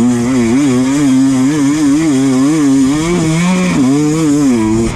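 Enduro motorcycle engine held at high revs, its pitch wavering up and down two or three times a second as the throttle is worked in quick pulses on a hard enduro climb. It cuts off abruptly just before the end.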